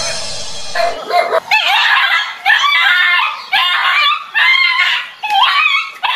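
A dog barking over and over in a run of high-pitched, wavering barks as it tussles with a stuffed toy tiger.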